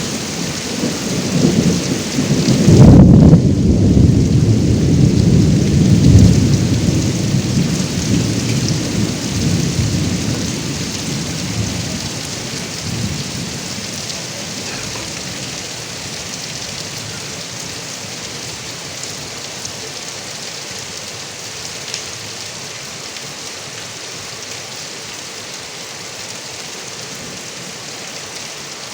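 Steady rain pouring off a roof gutter spout, with a roll of thunder that peaks about three seconds in and rumbles away over the next ten seconds.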